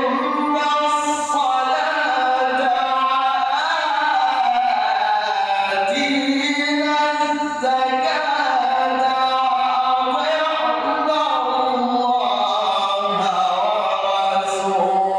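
A man's solo voice reciting the Quran in melodic tajweed style, drawing out long notes that glide slowly up and down.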